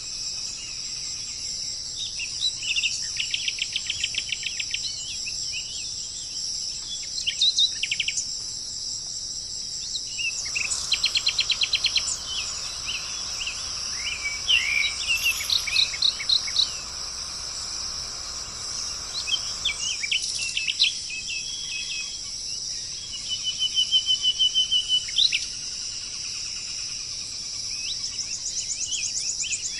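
Steady high-pitched insect chorus, like crickets, with songbirds calling over it in bursts of fast trills and varied chirps. A soft hiss joins in about ten seconds in and stops about ten seconds later.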